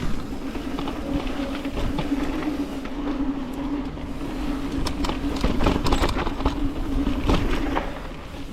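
Mountain bike rolling fast down a dirt trail: a steady rush of tyres and wind with a constant low hum, and sharp knocks and rattles of the bike over bumps, mostly from about five seconds in.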